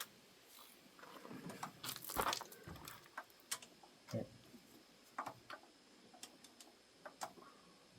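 Hand tools and engine parts clinking and knocking as a big-block Chevy engine is taken apart: scattered sharp metallic clicks, with a louder clatter about two seconds in.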